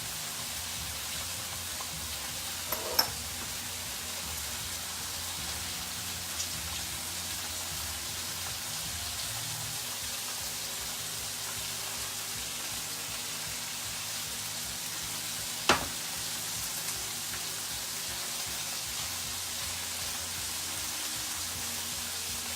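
Chicken halves sizzling steadily in a pan as their marinade of beer, citrus juice and honey cooks down. There is a sharp click about three seconds in and another about sixteen seconds in.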